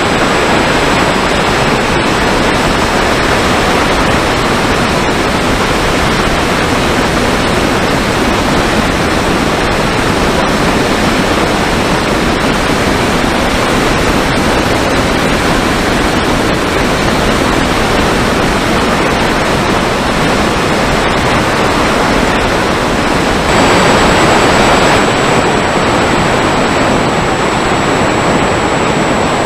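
Wind noise and electric motor and propeller noise picked up by the onboard camera of a Mini Talon FPV plane in flight: a loud steady hiss with a faint high whine, swelling briefly about three-quarters of the way through.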